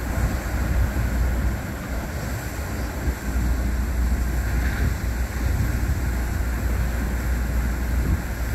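Ocean surf breaking and washing in a steady roar, with wind buffeting the microphone in a deep rumble.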